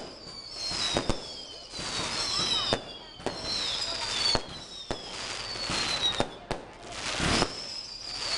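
Fireworks going off: a string of sharp firecracker bangs mixed with several overlapping whistling fireworks, each whistle sliding downward in pitch.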